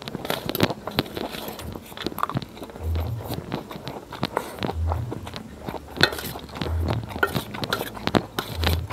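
Close-up chewing and slurping of fried instant noodles, with a spoon and fork clicking and scraping on a steel plate. A low thud sounds about every two seconds underneath.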